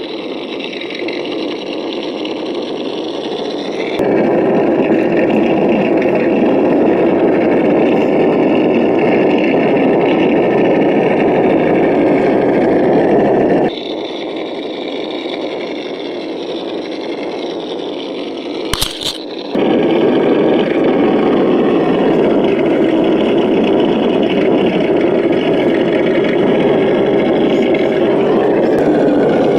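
Simulated V8 engine sound from the sound module of an Axial SCX10 RC crawler, running steadily as the truck drives, louder from about four seconds in and softer for a stretch past the middle, with one sharp click about two-thirds of the way through.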